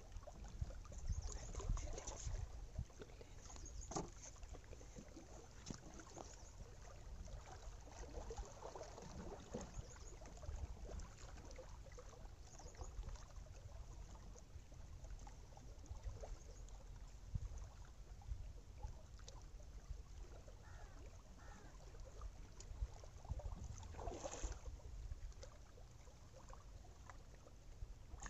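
Small waves lapping against shoreline rocks, with a steady low rumble and scattered faint clicks, and a brief louder splash-like rush near the end.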